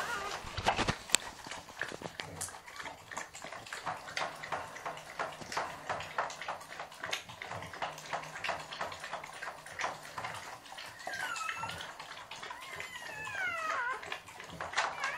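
Newborn puppies squealing in thin, high cries that slide down and up, several of them from about two-thirds of the way in. Under them runs a steady patter of small wet clicks and smacks, the mother dog licking her newly born pup.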